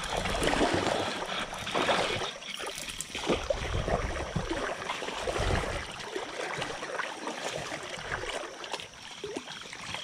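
Creek water splashing and sloshing as a hooked brown trout is fought close in on a spinning rod, with a stream of short splashes and low rumbles through the first half that ease off later.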